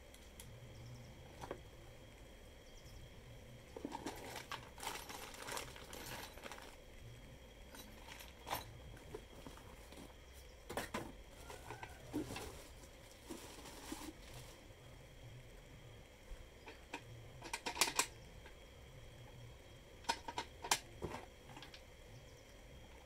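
Plastic wrapping rustling and crinkling in short bursts, with scattered clicks and light knocks of plastic and metal stand parts handled in a cardboard box. The loudest cluster of clicks comes about three-quarters of the way through.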